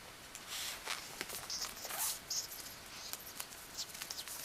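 Soft, scattered rustles and scratches as a cat bats at a feather toy over a fabric sofa, paws and claws brushing the upholstery and the feather.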